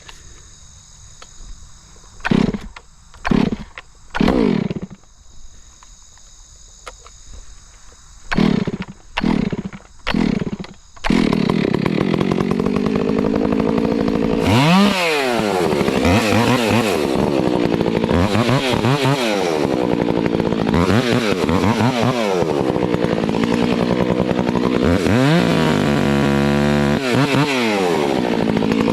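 Stihl MS362 two-stroke chainsaw being pull-started: about seven short pulls of the starter cord in two groups, then it catches about a third of the way in and runs, revved up and down again and again. Crickets chirp steadily under the pulls.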